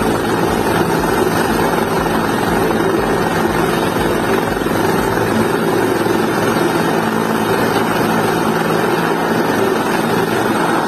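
Helicopter running steadily with its skids on the ground: turbine engine and rotor noise at an even, unchanging pitch.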